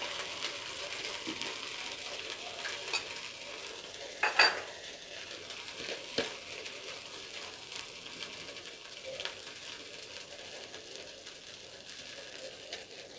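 Rice and lentils frying in a pot: a steady soft sizzle that slowly dies down. A sharp knock with a brief ring about four seconds in, and a lighter click a couple of seconds later.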